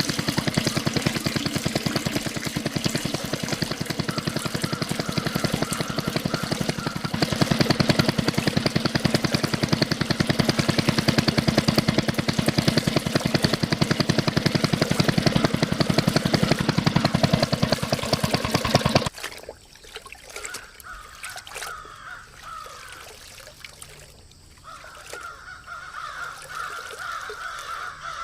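Miniature diesel engine running with a fast, even chugging beat, cutting off suddenly about two-thirds of the way through. Afterwards, quieter repeated calls are heard in the background.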